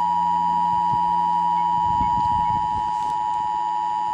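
Emergency Alert System attention signal: a steady, unbroken two-tone electronic beep near 1 kHz, the paired 853 Hz and 960 Hz tones that announce an emergency broadcast alert.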